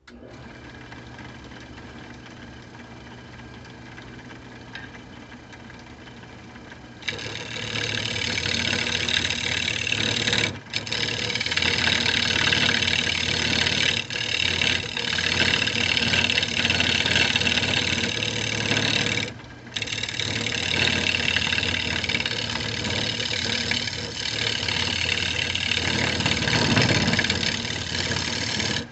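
Wood lathe switched on and running with a steady motor hum. About seven seconds in, a turning tool bites into the spinning cherry bowl blank with a loud, rough cutting noise, which drops out briefly twice as the tool is lifted off the wood.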